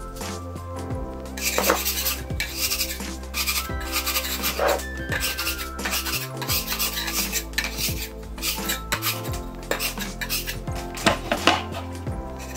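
A bench scraper scraping repeatedly across a stone countertop as it pushes and turns a round of sourdough to tighten it in the final shaping, starting about a second and a half in, over background music.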